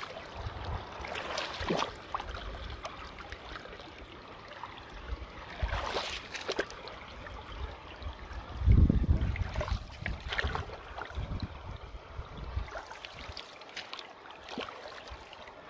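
Water sloshing and splashing around hands pulling beaver-dam mud and sticks off a submerged culvert grate, in irregular bursts, the loudest about nine seconds in.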